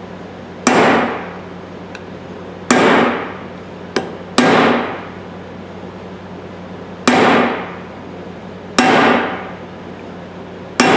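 Hammer blows on a metal punch driving a wedge deeper into the handle of a brass sledgehammer: six ringing strikes at uneven intervals of one to three seconds, with one light tap among them. The wedge is resisting and barely going in.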